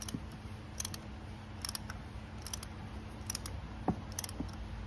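Light metallic clicks, about one a second, from a hand tool being turned by hand in a bolt hole of a BMW X5 30d's aluminium camshaft carrier. A steady low hum runs underneath.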